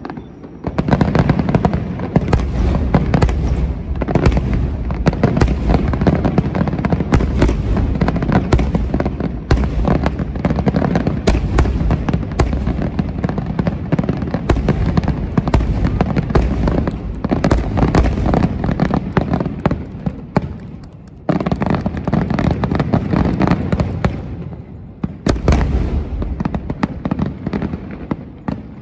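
Aerial firework shells bursting in a rapid, nearly unbroken barrage, booms overlapping with crackle. It starts about a second in, eases off briefly twice in the last third, and thins out near the end.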